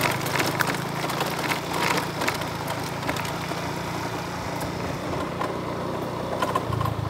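Small motorbike engine running steadily at low speed, with scattered clicks and rattles over the first few seconds.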